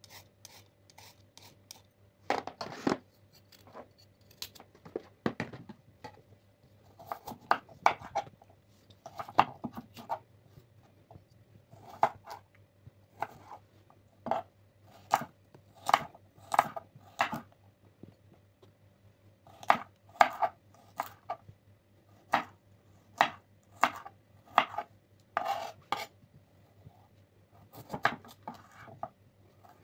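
Kitchen knife cutting raw carrots on a wooden chopping board: irregular sharp knocks of the blade striking the board, often in quick clusters of two or three.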